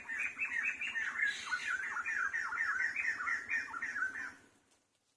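An animal calling in a fast run of short, falling squawks, about five a second, that stops about four seconds in.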